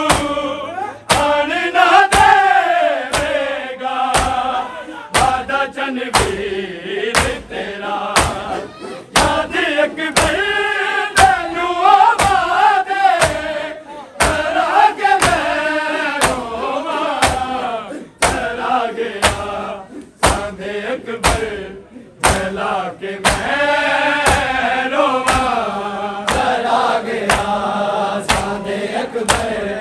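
A group of men chanting a Punjabi noha lament in unison, with steady rhythmic chest-beating (matam) keeping time at a little under two beats a second.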